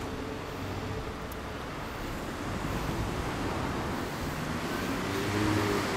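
Kawasaki GPz1100's air-cooled inline-four idling steadily through a Kerker aftermarket muffler.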